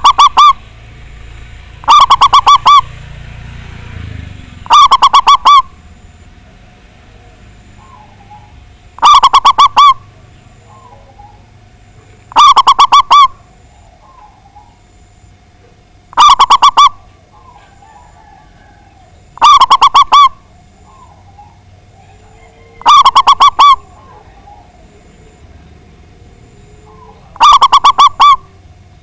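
Zebra dove (Javanese perkutut) cooing: a short, loud run of rapid staccato notes, repeated nine times, each about every three to four seconds. Faint chirps of other birds sound between the phrases.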